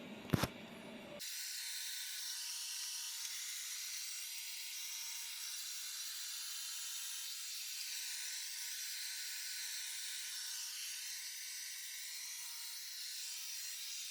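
Roborock S7 MaxV robot vacuum running at max plus suction: a steady, even hiss from its fan that starts abruptly about a second in, after a couple of short clicks.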